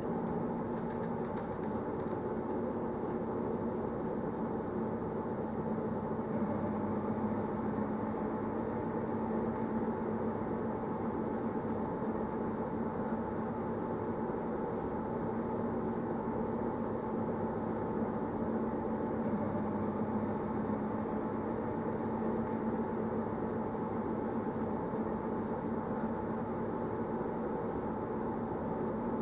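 Berner Oberland-Bahn narrow-gauge train running steadily: an even running noise with a steady hum underneath, with no change in pace.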